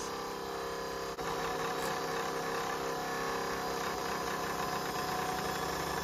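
Electric motor spinning a magnet disc, running with a steady hum. A brief click about a second in.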